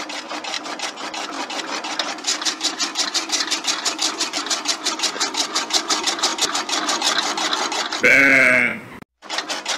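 Homemade miniature chaff cutter, a small electric motor belt-driving a flywheel-mounted cutter, chopping green grass stalks with a fast, even clatter of about six cuts a second. About eight seconds in, a short, loud animal call cuts across it, then the sound drops out for a moment before the chopping resumes.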